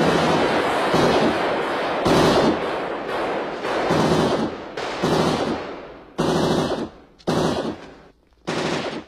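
Rapid automatic gunfire: about six seconds of sustained firing, then three short bursts about a second apart.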